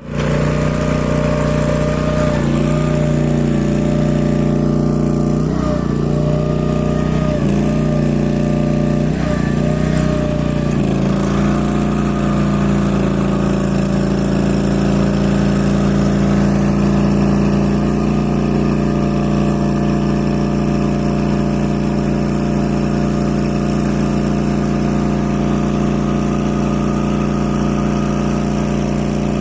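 Skid steer loader engine running with its hydraulic horizontal-blade mower attachment, a steady mechanical drone whose pitch dips several times in the first ten seconds or so, then holds steady.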